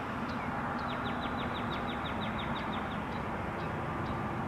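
Steady rushing road noise of a car driving, with a bird's quick trill of about a dozen falling chirps starting about a second in, and a few scattered chirps around it.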